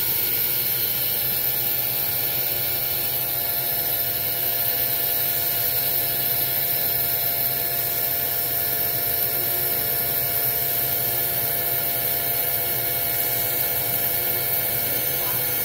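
The main spindle of an EMAG VL-3 inverted CNC lathe running steadily at a spin-up test speed of 4000 RPM. It gives an even machine whine of several held tones over a low hum.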